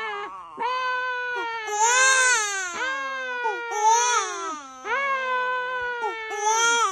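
An infant crying hard: a run of loud wails, each rising and then falling away in pitch, with short catches of breath between them.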